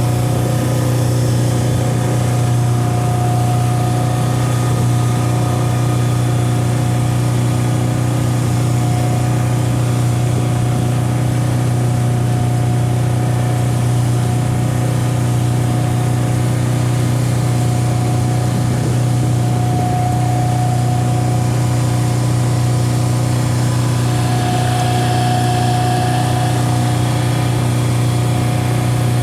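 Boat engine running at a steady speed, a constant drone with no change in pitch.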